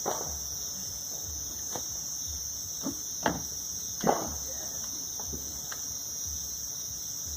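Crickets chirring steadily at a high pitch, with a few scattered sharp pops and clicks, the loudest about three and four seconds in.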